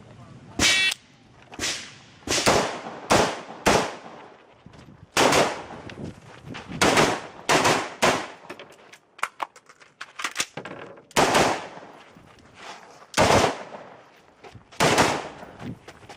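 A string of rifle shots: about a dozen sharp reports at uneven spacing, each with a short echoing tail.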